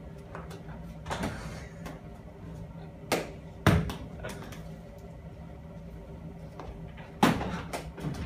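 Sharp knocks and bangs: three loud ones about three seconds in, a moment later and near the end, with fainter knocks between, over a steady low hum.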